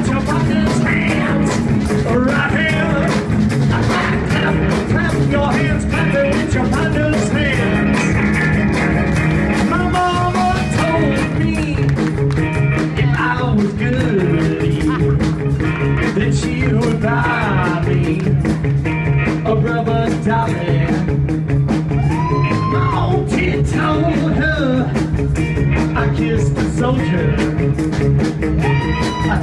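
A live band playing with a horn section of trombone and saxophones, electric guitar, bass and drums, with singing over it.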